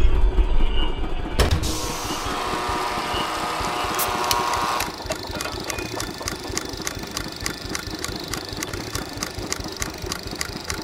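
Machinery clattering: a sharp knock about a second and a half in, a rushing noise, then from about halfway a fast, regular clicking like a mechanism running.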